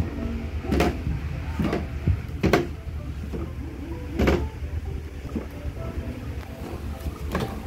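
Plastic toddler rocker rocking on a foam play mat, its hollow base knocking in about five short thumps at uneven intervals.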